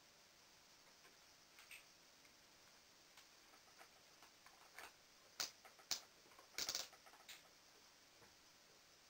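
Near silence broken by faint, irregular clicks and ticks, the loudest two about half a second apart and then a quick cluster of clicks a little past two-thirds through.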